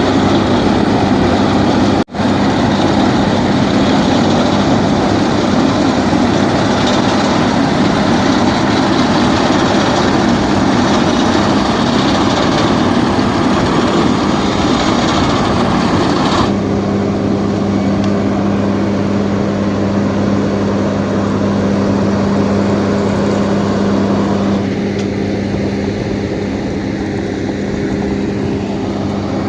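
Heavy road-construction machinery engines running steadily, broken for a moment about two seconds in. From about halfway through the sound changes to a steadier, even-pitched engine hum.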